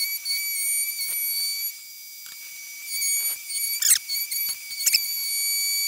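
Table-mounted router with a roundover bit running with a steady high whine while it cuts the back edge of a guitar neck, with a few short louder cuts as the neck is pushed past the bit.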